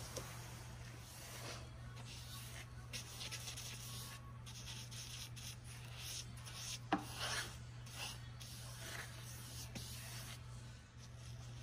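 Paintbrush bristles stroking paint onto a painted wooden cabinet toe kick: repeated soft, scratchy brush strokes, with one sharp tap about seven seconds in.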